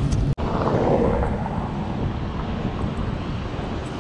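Wind buffeting an action camera's microphone while a bicycle is ridden, over a low rumble of road noise. The sound cuts out for an instant about a third of a second in.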